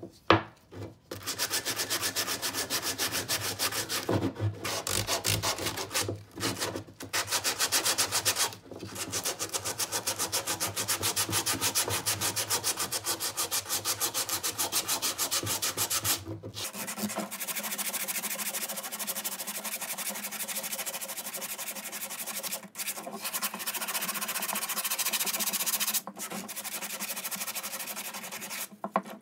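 Sandpaper rubbed by hand over a wooden saw handle in quick back-and-forth strokes, in long runs broken by a few short pauses.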